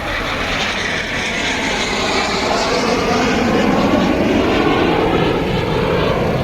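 Display aircraft in formation flying past, the engine noise building to its loudest about four to five seconds in, its tone sweeping as they pass.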